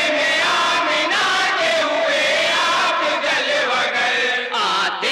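A group of men singing a naat together as a chanted chorus, amplified through loudspeakers, with long held and wavering notes.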